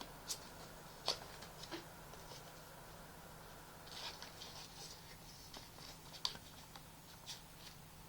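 Faint, irregular clicks and light scratching from small objects being handled, with a sharper click about a second in and a short scratchy patch about four seconds in.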